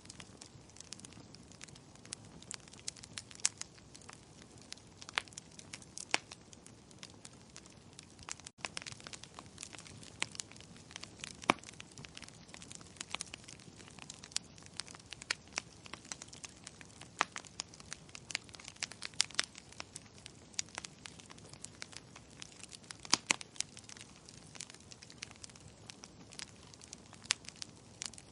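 Wood fire in a fireplace crackling: irregular sharp pops and snaps, several a second, over a faint steady hiss, with a few louder pops here and there.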